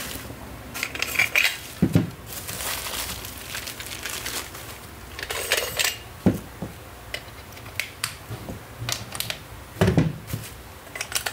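Handling noise from a wireless microphone set being unpacked and readied: scattered clicks, light clinks and knocks as the aluminium mic handsets and receiver are picked up and set down, with a few louder thumps and brief rustling.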